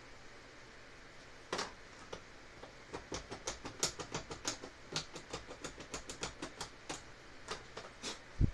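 Small screwdriver tip picking and scraping dried wood glue out of a joint in a bamboo tray frame: a run of quick, sharp scratching clicks, several a second, followed near the end by a single louder thump.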